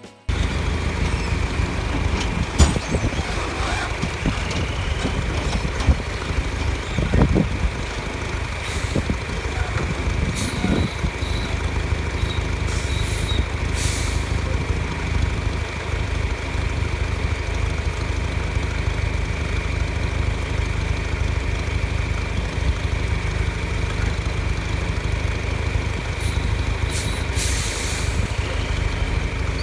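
Heavy diesel harvest machinery running steadily: a deep engine drone with a constant high whine, a few knocks and rattles in the first ten seconds, and short hissing bursts near the middle and near the end.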